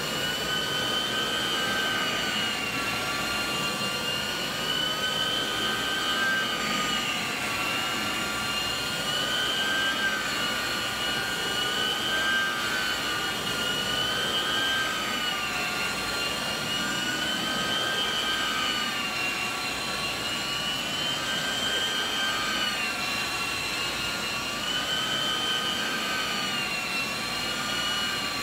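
A Rotovac rotary extraction tool working carpet, fed by a truck-mounted hot water extraction machine: a steady high whistling whine of suction. Its pitch rises and falls in slow waves every few seconds as the tool is worked across the carpet.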